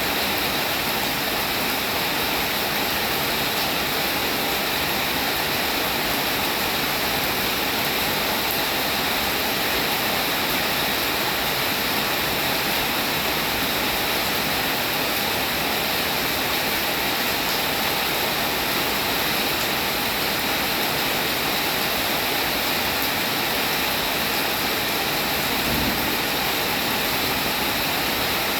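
Steady rain falling, an even, unbroken wash of sound that neither builds nor lets up.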